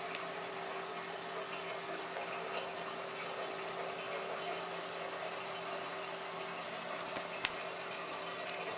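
Thin stream of tap water running steadily into a ceramic bathroom sink, with a few sharp ticks. The loudest tick comes near the end.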